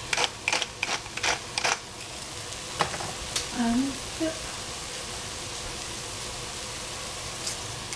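A spatula scraping and stirring in a frying pan, about three quick strokes a second, over the steady sizzle of food frying. After about two seconds the stirring stops and the sizzle goes on alone.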